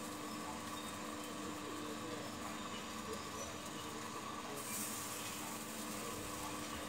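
Motor-driven pig-roasting spit rotisserie turning through its chain and belt drive: a steady mechanical hum with a few constant tones. A brighter hiss comes in about two-thirds of the way through.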